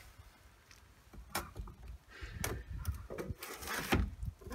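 White PVC pipes being fitted together by hand: two short plastic knocks, then a longer scraping slide about three and a half seconds in as one pipe is pushed into the other.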